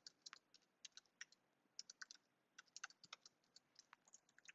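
Faint typing on a computer keyboard: short, irregular keystroke clicks in small clusters.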